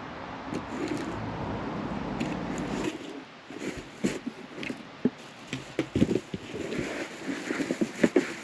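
Cardboard box being opened and its packaging handled: a steady rustling noise for about three seconds, then irregular crackles and knocks.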